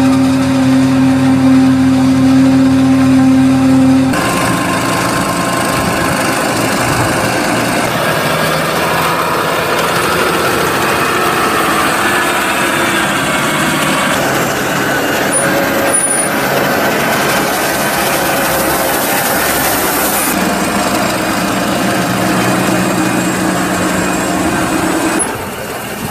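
Heavy diesel farm machinery working. First a tractor engine runs at steady revs with a strong pitch alongside the forage harvester. Then comes a rougher, noisier mix of a tractor engine and a forage wagon unloading chopped maize silage, its floor and discharge beaters running, before a steady engine tone returns.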